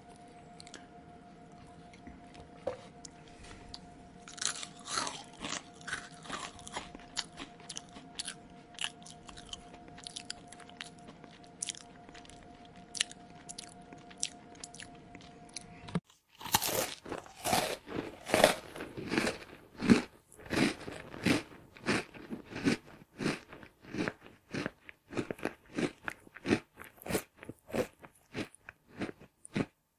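Close-miked mouth chewing and biting of crunchy food. The first half has sparser, quieter crunches over a faint steady hum. About halfway through it cuts to much louder, rapid crunching, about three bites a second.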